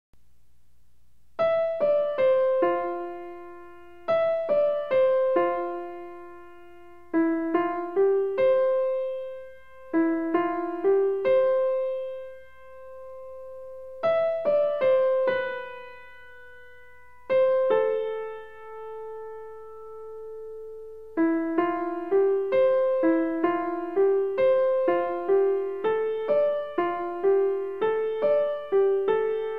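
Background piano music: a slow melody of single struck notes in short phrases, each note fading away, with a longer held note past the middle and then a busier run of notes.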